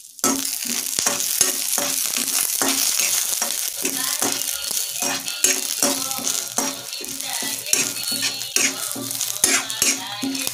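Peanuts, dal, dried chillies and curry leaves sizzling in hot oil in an iron kadai, with a metal spatula scraping and clattering them around the pan in quick repeated strokes. The sizzle starts suddenly just after the beginning.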